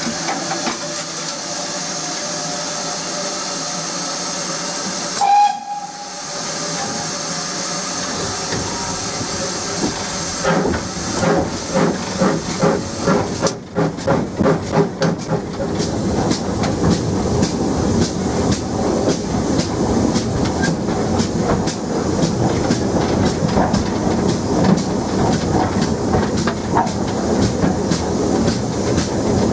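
Inside the cab of a GWR 57xx pannier tank steam locomotive: steady steam hiss, a brief whistle toot about five seconds in, then exhaust beats as the engine starts away, the chuffs coming quicker toward the end.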